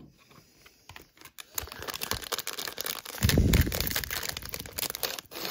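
Wrapper of a Panini Donruss Optic football card pack being torn open and crinkled by hand, loudest about halfway through. A few light taps come before it near the start.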